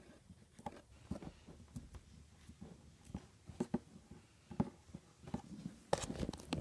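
Faint, irregular taps and clicks of small objects being handled on a table, with a louder cluster of clicks near the end.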